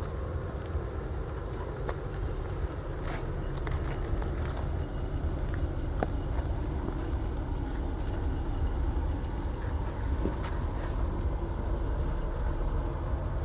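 Lifted Jeep's engine running at low revs as it crawls slowly down a steep, rutted dirt gully, a steady low rumble. A few sharp clicks come through about three seconds in and twice more near ten seconds.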